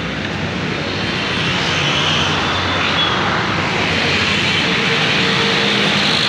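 Steady drone of busy road traffic, mostly motorcycle and auto-rickshaw engines on the road below.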